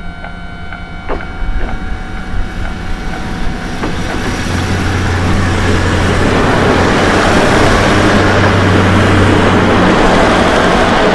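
Kominato Railway diesel railcar running over a level crossing. Over the first few seconds the crossing's warning bell rings with a steady tone and some clicks. From about four seconds in, a low engine drone and wheel noise build up and drown the bell, loudest in the second half.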